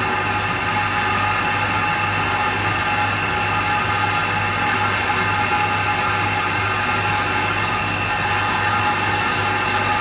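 Milling machine running steadily, drilling holes through a horn plate into a model steam engine's boiler: an even hum with a constant gear whine.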